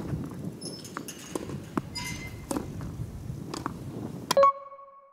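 Tennis balls being struck with rackets and bouncing on a hard court in topspin forehand rallying, an irregular series of sharp pops. A loud hit about four seconds in rings briefly, then the sound cuts off.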